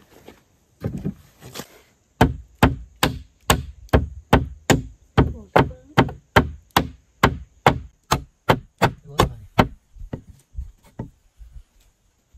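Hand tool striking wood over and over, about two and a half blows a second: some nineteen sharp, evenly spaced strikes starting about two seconds in, then a few fainter, more scattered knocks near the end.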